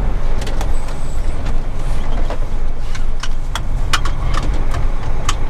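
Iveco Stralis's Cursor 13 diesel engine running steadily as the tractor unit moves off slowly without its trailer, heard inside the cab. Several sharp irregular clicks sound over the engine.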